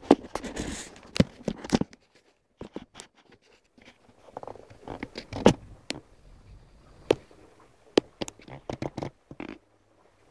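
Camera handling noise: the camera is scraped, rubbed and knocked against a surface as it is set down. The result is a string of irregular sharp clicks and scrapes, busiest in the first two seconds and sparser afterwards.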